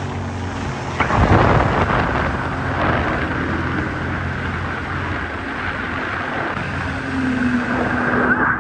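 Sea-Doo Spark personal watercraft running at speed. About a second in, a sudden loud rush of hissing noise starts as the hull runs from open water onto ice and slides across it, scraping and throwing spray, and the engine's hum runs under it. Near the end the engine holds a steady higher tone.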